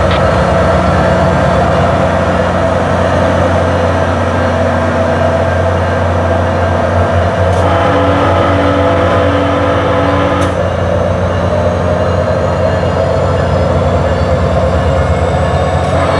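Diesel train locomotive running with a steady low engine drone.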